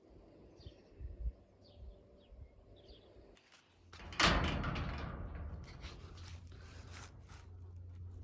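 A gate swings open on its own, with a sudden loud bang about four seconds in and a noisy clatter that fades away over the following seconds. Birds chirp faintly before it.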